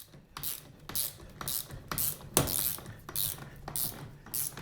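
Screw being driven by hand with a screwdriver while mounting a Linebacker door-lock bracket: repeated turning strokes about twice a second, with one sharper knock about halfway through.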